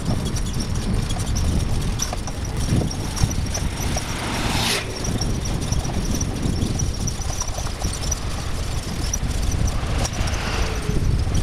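Bicycle rolling over brick paving: a steady rumble with constant small rattling clicks. A brief rushing sound comes about halfway through.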